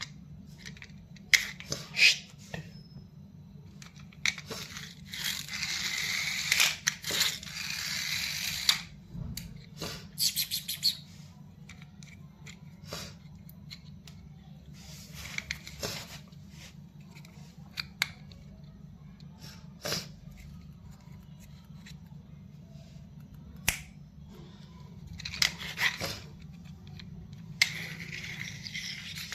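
Toy car and its packaging being handled: scattered sharp clicks and several stretches of rustling, crackling plastic or cardboard, over a steady low hum.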